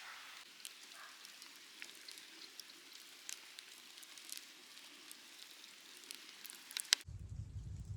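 Wood campfire crackling: scattered small pops and snaps over a steady hiss, with rain falling. About seven seconds in, a loud snap, and then the sound switches abruptly to a low hum.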